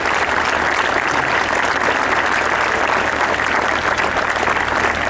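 A large outdoor crowd applauding steadily, a long round of clapping that eases slightly near the end.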